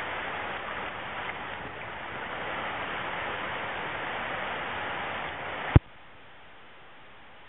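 Steady rushing of a fast river running past the rocks. Nearly six seconds in there is a single sharp knock, and after it the rushing is much quieter.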